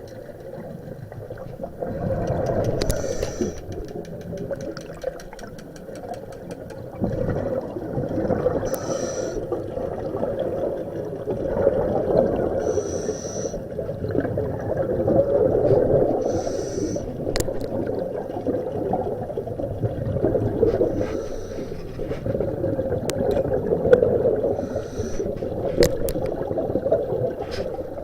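Water sloshing and lapping around a small fishing boat, with a short hiss about every four seconds.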